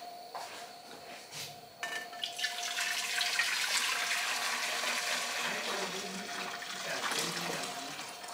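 Water poured from an electric kettle into a large aluminium pot, a steady splashing stream that starts about two seconds in and tails off near the end.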